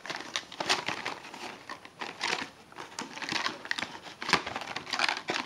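Cardboard box and clear plastic blister packaging crinkling and rustling in irregular crackles as the plastic cable tray is slid out of the box and handled.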